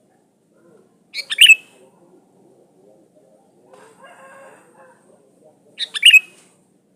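Sooty-headed bulbul singing: two short, loud chirping phrases about four and a half seconds apart, each ending on a falling note.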